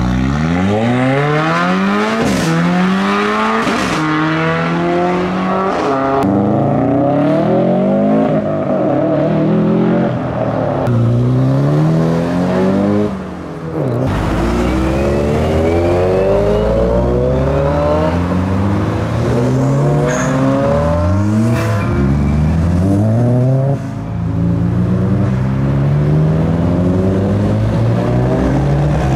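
Modified performance cars, among them a Mitsubishi Lancer Evolution and a Nissan S14 Silvia, accelerating hard one after another. Their engines rev up with rising notes that drop back at each gear change, and there are a few short sharp cracks.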